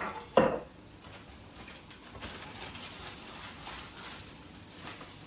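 Faint rustling with light scattered ticks as fresh thyme and rosemary are stripped and sprinkled into the pan. A short, sharp sound about half a second in is the loudest thing.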